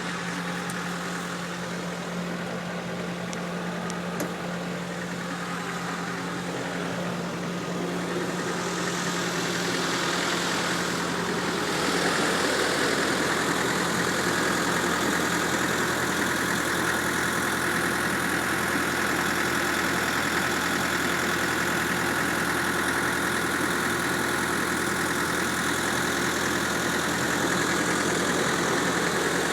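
A 1988 Takeuchi TB68 excavator's Nissan six-cylinder diesel engine running steadily. It grows louder from about 8 to 12 seconds in, then holds steady at the higher level.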